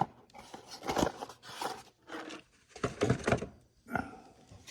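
Rummaging in a toolbox drawer: a series of short rustles and light knocks as papers and small items are handled and moved about.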